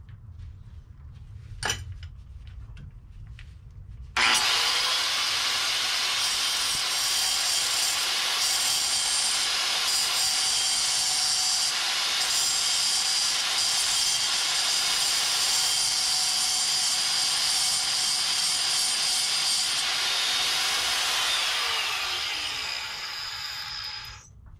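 A handheld power tool starts abruptly a few seconds in and runs steadily for about twenty seconds, its bit grinding against metal while clearancing around the Beetle's clutch cable at the firewall. Near the end it fades and winds down before stopping.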